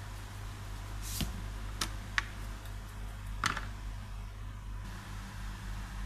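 Kitchen knife tapping and scraping lightly on a plastic cutting board: four scattered short clicks, over a steady low hum.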